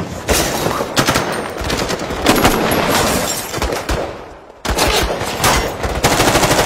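Rapid automatic rifle fire, shots in quick bursts, with a short lull about four seconds in, then a fast unbroken burst near the end.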